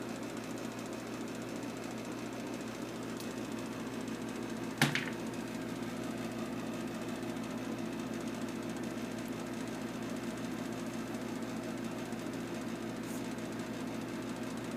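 A steady low mechanical hum, with one sharp click about five seconds in.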